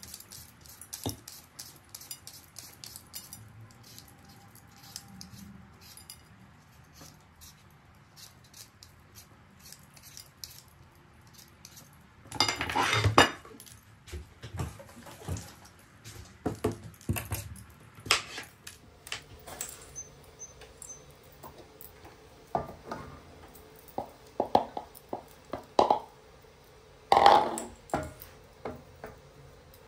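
Kitchen work: a vegetable peeler scraping a potato in quick strokes, then clatter and scattered knocks of dishes and utensils, with a loud clatter about halfway through. Near the end a wooden spoon scrapes and stirs chopped mushrooms in a stainless steel pot, over a faint steady hum that begins about two-thirds of the way in.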